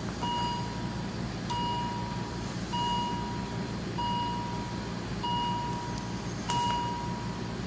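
Philips Efficia CM120 patient monitor beeping: a steady mid-pitched tone, each beep about half a second long, repeating about once every 1.2 s, six or seven times, over a low steady hum.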